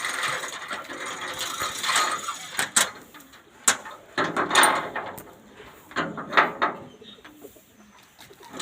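Irregular metal clanking and rattling in several separate bursts, from metal furnace parts being handled.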